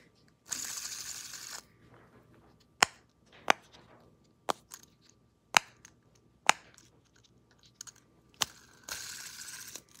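Silicone pop-it bubbles on a simple-dimple fidget spinner being pressed: about six sharp pops, roughly a second apart. Short hissing stretches come near the start and near the end.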